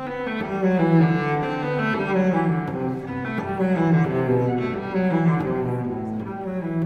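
Bowed cello playing classical music, a moving line of sustained notes that change every fraction of a second.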